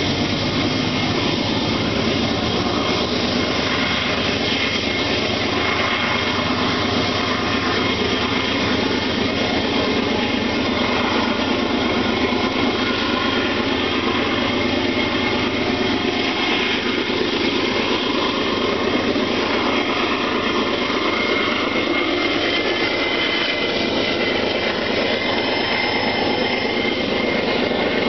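Rear-end remote GE AC4400CW diesel locomotive and the tail of a loaded grain train working up a grade and moving away. A steady drone of engine and wheels on rail, with a thin high whine over it.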